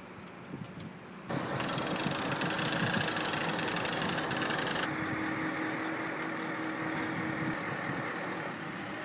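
Machinery running at a grain silo's loading spout above a truck and trailer: a steady mechanical noise with a steady hum. It starts suddenly about a second in, with a strong hiss for its first few seconds.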